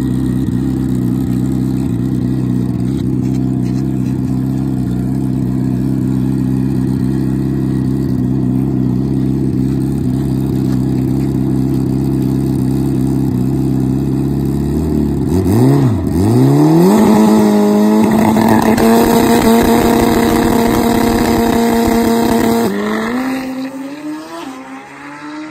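Turbocharged Suzuki Hayabusa drag bike idling at the start line. About 15 seconds in it revs up and holds a steady high rev for several seconds. It launches about 23 seconds in and the sound quickly fades as it pulls away down the track.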